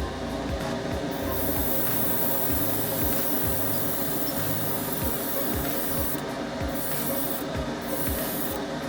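Paint spray hissing in bursts for model painting, starting about a second in and cutting off and restarting a few times near the end. Background music with a steady beat plays underneath.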